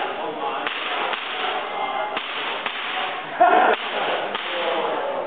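Airsoft gun firing a string of sharp snapping shots, roughly one every half second, with one louder burst about three and a half seconds in.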